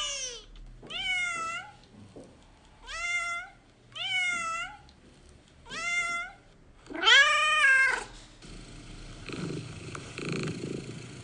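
Domestic cat meowing five times, each call rising then falling in pitch, the last the longest and loudest. From about eight seconds in the cat is purring in a steady pulsing rhythm.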